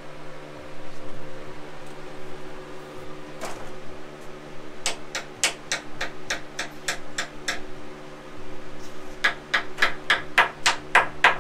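Steady low buzzing of a carpenter bee inside its bored hole in the wood. Two runs of rapid sharp taps, about five a second, start about five seconds in and again about nine seconds in; the taps are the loudest thing.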